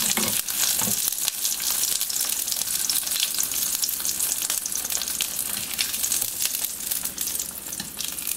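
Mushroom-stuffed fried tofu sizzling in a little oil in a frying pan, shallow-fried to crisp its outside. The crackle runs steadily throughout.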